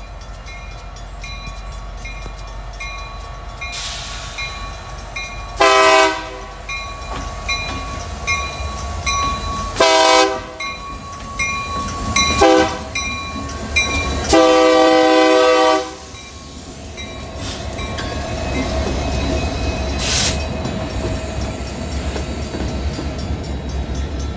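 Union Pacific diesel locomotive sounding its air horn four times for a grade crossing, the last blast the longest, while a bell dings steadily. After the horn, the locomotive's engine and the freight cars' wheels make a growing rumble as the train rolls past, with a brief hiss near the end.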